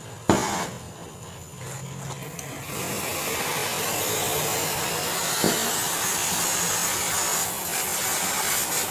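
Gas welding torch hissing steadily as its flame works on a steel motorcycle exhaust pipe, the hiss growing louder about three seconds in. A sharp knock comes about a third of a second in, and a lighter one near the middle.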